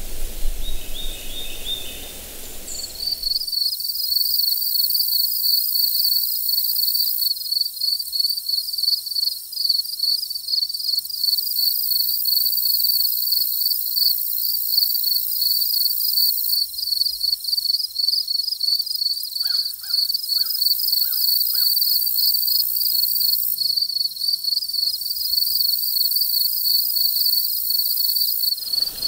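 Insects trilling steadily in a fast, pulsing high-pitched chorus, with a crow cawing about five times in quick succession near the middle. It opens with a few seconds of rustling outdoor noise and high bird chirps before the trill takes over.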